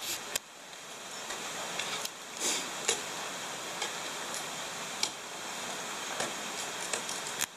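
Ice axes and crampons striking the ice of a frozen waterfall: a few faint, irregular ticks and knocks over a steady hiss.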